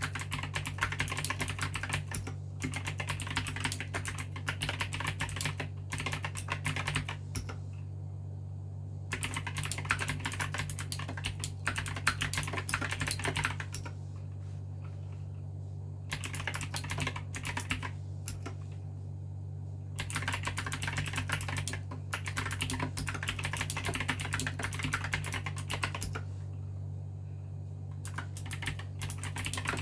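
Fast typing on an Aigo A108 mechanical keyboard with blue switches, each keystroke a sharp click, coming in runs of several seconds with short pauses between them. A steady low hum lies underneath.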